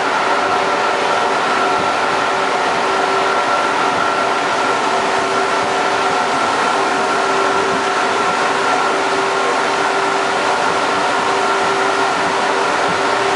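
Metro train running: a steady, loud noise with a few steady whining tones held throughout.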